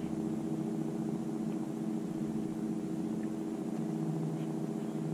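Steady drone of a boat engine running at a constant speed, a low hum made of a few even tones.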